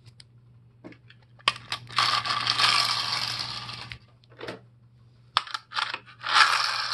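Small plastic wheeled toy animals rolling across a concrete floor: two stretches of rattling wheel noise, each fading as the toy slows, with a few sharp plastic clicks and taps between them.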